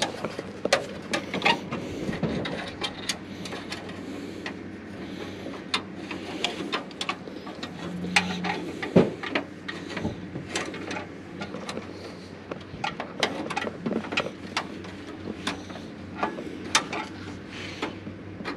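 Hand tools clicking and knocking irregularly as electricians work on a power pole hookup, with one louder knock about nine seconds in and a brief low hum just before it.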